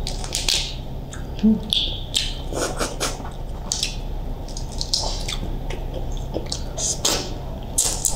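Boiled prawn's shell being cracked and peeled by hand: a run of irregular small crackles and snaps, with a few sharper cracks.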